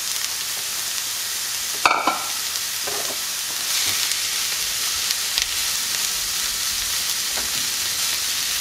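Shredded chicken and onions sizzling in oil in a cast iron skillet while being stirred with a wooden spoon. A short clink with a brief ring comes about two seconds in, and the sizzle grows louder a little before four seconds in.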